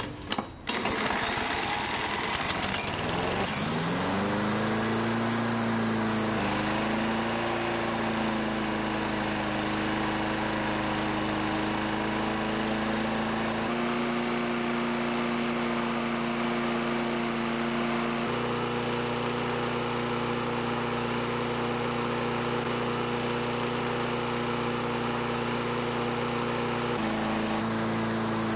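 A walk-behind lawn mower's small single-cylinder engine starts about three seconds in, its pitch rising as it comes up to speed, then runs steadily. Its crankcase is filled with Head & Shoulders shampoo in place of motor oil.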